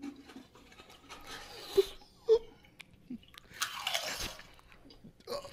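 Pringles potato crisps being bitten and crunched in the mouth close to the microphone, in irregular loud crunches.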